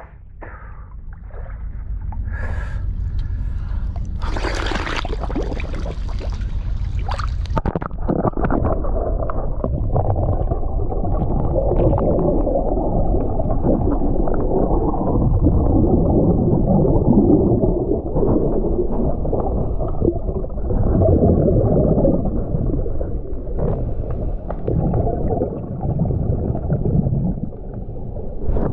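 Splashing and a hiss as a scuba diver goes under. From about eight seconds in, the diver's regulator breathing is heard through the camera's underwater housing: a muffled rumble of gurgling exhaled bubbles that swells and fades with each breath.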